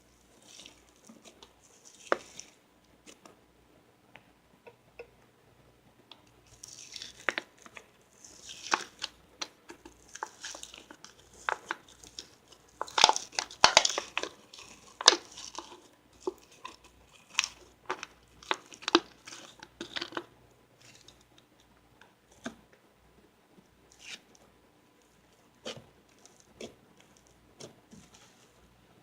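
Snowflake slime being squeezed, stretched and pressed by hand, giving irregular crackling, crunching and sticky popping. It is sparse at first, busiest and loudest through the middle, then thins out again.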